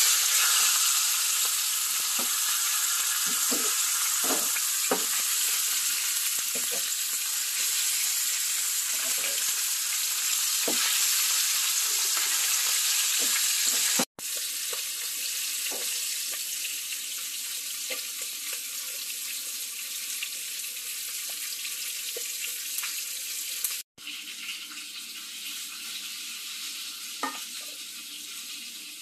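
Chicken breasts frying in oil in a nonstick pan: a steady sizzling hiss with scattered small pops. It cuts out abruptly twice, after about 14 s and 24 s, and is a little quieter after each break.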